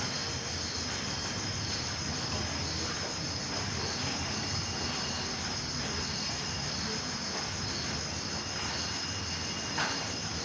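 Crickets chirping in a steady, high continuous trill, with a brief tap near the end.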